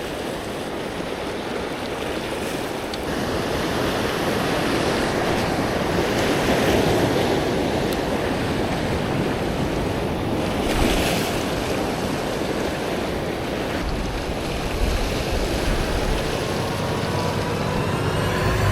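Heavy surf washing and breaking over a rock ledge in a big swell, swelling and easing, with wind buffeting the microphone.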